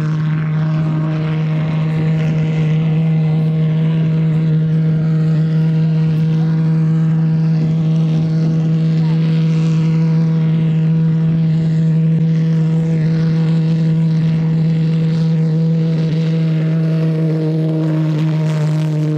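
An engine running steadily, a loud even drone at one unchanging pitch with no rise or fall.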